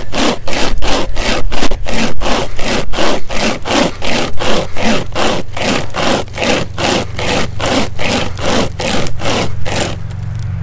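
Nordic Pocket Saw, a hand-pulled chainsaw chain, rasping through a dry, seasoned hardwood log in fast, even strokes, about three a second, cutting on both the push and the pull. The sawing stops about a second before the end.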